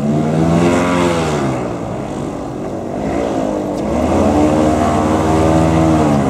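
Airboat engine and propeller running loud, revving up, easing off, then revving up again and holding.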